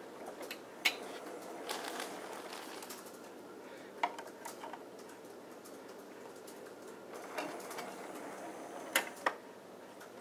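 Sony CMT-EX22 mini hi-fi's vertical CD loader being opened, loaded with a disc and closed: a run of plastic clicks and clacks from the button, the sliding clear door and the disc going onto the spindle. The loudest are a sharp click about a second in and two sharp clicks in quick succession near the end as the door shuts and the disc is clamped.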